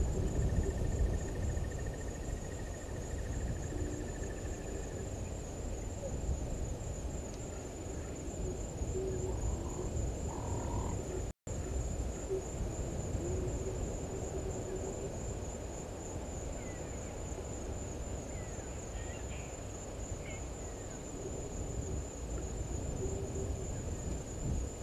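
A bird giving short, low hooting calls at irregular intervals over a steady, high-pitched insect trill. The audio cuts out for an instant a little before halfway.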